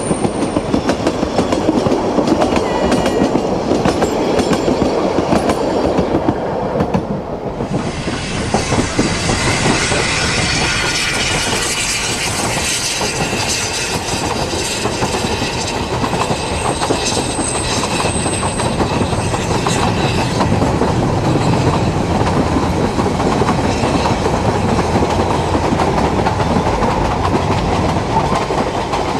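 Narrow-gauge passenger coaches rolling past close by, wheels clicking over the rail joints with brief high wheel squeal. About seven seconds in the sound changes to a steam-hauled narrow-gauge train running along the line, coaches rattling over the track.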